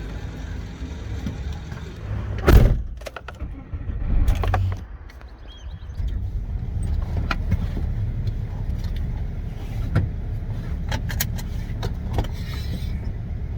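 A heavy knock about two and a half seconds in and another around four and a half seconds, then scattered sharp clicks and taps over a steady low rumble.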